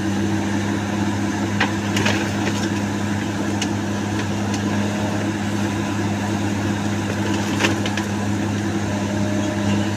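Komatsu excavator's diesel engine running steadily under work, with a few sharp knocks and clanks from the machine and its load, the sharpest about three-quarters of the way through.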